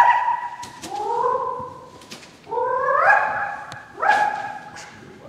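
Half-Arabian colt whinnying: four loud, high calls, each about a second long and sliding in pitch, one after another.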